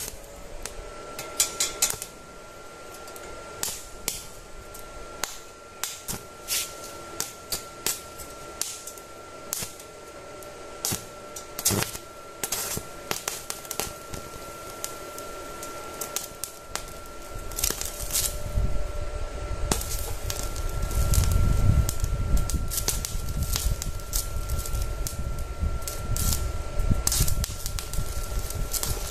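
Stick (MMA) welding arc burning on a joint in thin square steel tube: irregular crackling and popping as the electrode burns, getting louder and more continuous about two-thirds of the way through. A faint steady thin whine runs underneath.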